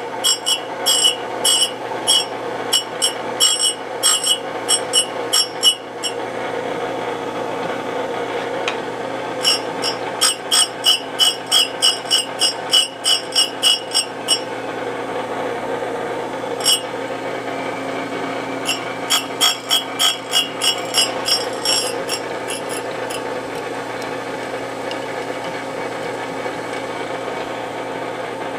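Delta 12-inch hand surface grinder running steadily, with bursts of sharp metallic clicks at about two a second while the table is worked by its handwheel. The clicks come in runs for the first six seconds, again in the middle and once more past two-thirds, after which only the steady running is left.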